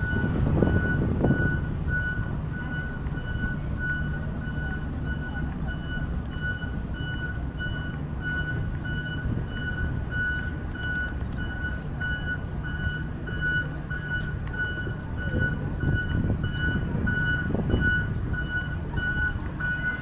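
Reversing alarm of a road-construction machine, beeping at an even pace, over the low rumble of engines and traffic.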